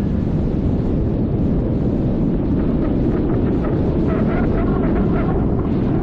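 Steady, loud wind rush over the microphone of a camera on a paraglider in flight. Through the middle of the rush, faint quick beeps come from the variometer, whose rising-air tone signals the glider is climbing in a thermal.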